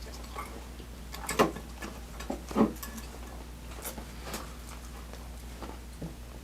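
Close-up eating sounds: scattered wet clicks and smacks of chewing, two of them louder about a second and a half and two and a half seconds in, over a faint steady low hum.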